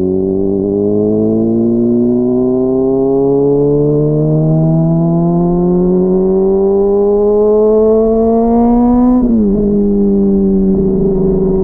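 Honda CBR600RR's inline-four engine pulling through a long, steady acceleration, its pitch rising slowly for about nine seconds. The pitch then drops sharply as the throttle closes or the rider shifts, and the engine runs on at an even pitch. It sounds muffled, picked up by a mic inside the rider's backpack.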